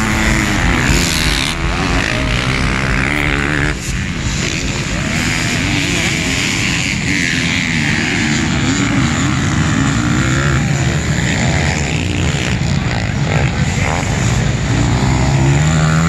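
Several motocross dirt bike engines racing, their pitch rising and falling over and over as the riders accelerate and back off.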